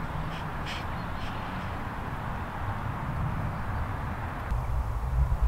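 Quiet open-air background on a golf fairway: a steady hiss with a few faint bird calls in the first second or so, and a low rumble that rises near the end.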